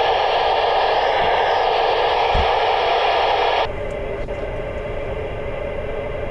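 FM radio receiver hiss: open-squelch static from the ham transceiver's speaker, steady and loud, dropping suddenly to a quieter hiss a little past halfway.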